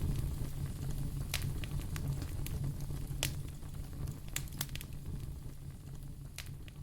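A fire crackling, with irregular sharp pops over a steady low rumble, slowly growing fainter.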